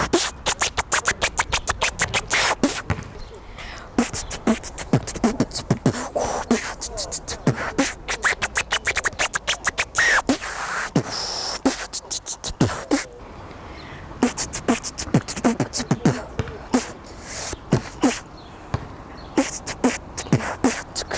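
A woman beatboxing: quick runs of sharp mouth clicks and snare sounds over short, deep kick sounds, broken by a couple of brief pauses.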